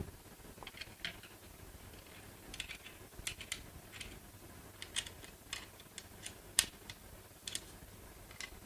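Faint, irregular light clicks and taps of polymer parts being handled as the cheek rest is worked loose on a polymer buttstock, with one sharper knock at the very start.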